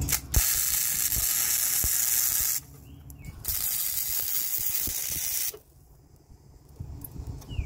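Wire-feed welder arcing in two bursts of about two seconds each, a steady crackling hiss, as short welds are laid on a thin sheet-metal patch panel.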